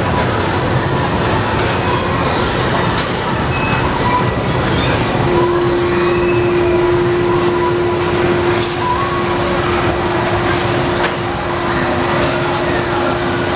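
Zipper carnival ride running: a loud, steady mechanical rumble from the ride's machinery. A steady tone comes in about five seconds in, and there are a few sharp clicks.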